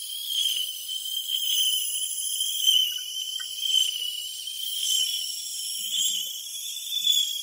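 High-pitched shimmering ambient drone from an experimental soundtrack, a dense cluster of thin high tones with nothing low underneath, swelling and fading irregularly.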